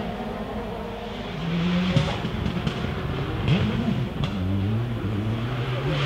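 Rally car engines on a special stage. One car is heard revving hard, its pitch climbing and dropping through gear changes, with a few sharp cracks in the middle. Near the end, a steadier engine note grows louder as the next car approaches.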